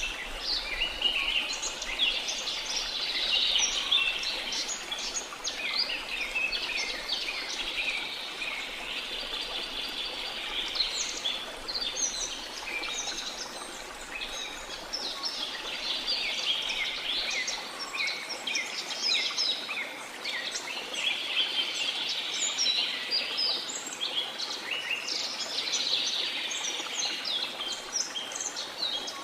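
A dense chorus of small birds chirping and twittering without a break, over a steady wash of sea noise.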